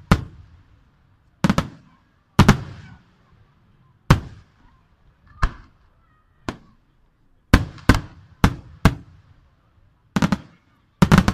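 Aerial firework shells from a Chiarappa Fireworks display bursting overhead: about a dozen sharp booms, each with a short rolling echo. They are irregularly spaced, some in quick pairs, with a rapid cluster of bangs near the end.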